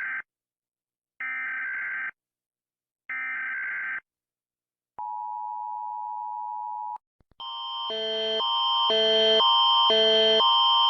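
Emergency Alert System alarm: short bursts of warbling digital header tones about a second long, then a steady attention tone lasting about two seconds. The tone is followed by a repeating electronic chime that switches between pitches about twice a second and grows louder.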